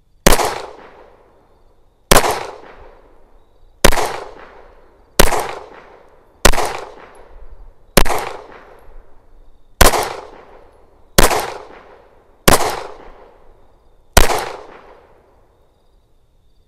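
FN 509 CC Edge 9mm pistol with its built-in compensator firing ten single shots in a slow string, about one and a half seconds apart. Each sharp crack trails off in a short echo.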